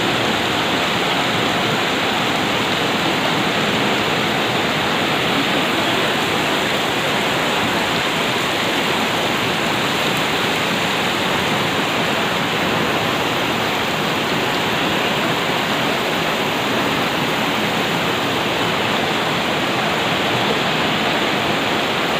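Steady, loud rush of fast-flowing river water.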